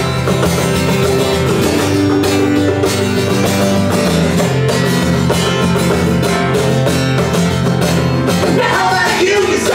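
Banjo and acoustic guitar played live together in a steady, fast tune, an instrumental stretch with singing coming back in near the end.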